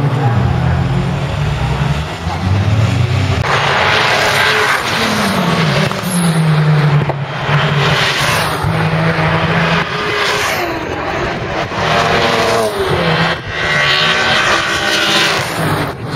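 Racing cars driving past at speed, several in turn, their engine notes rising and falling as they pass and shift gear.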